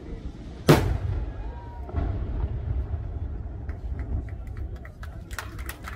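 A single loud aerial firework burst about a second in, followed by a low rolling rumble. Then come scattered sharp cracks that grow more frequent near the end.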